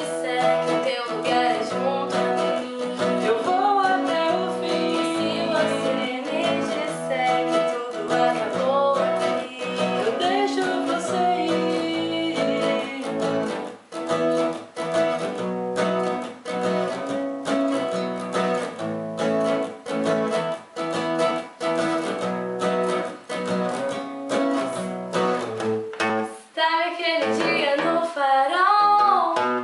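A woman singing a ballad in Portuguese over a strummed acoustic guitar and keyboard. Her voice drops back for a guitar-led stretch in the middle and returns near the end.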